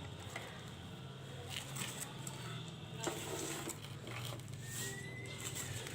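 Soft rustling and a few scattered clicks of objects being handled, over a steady low hum.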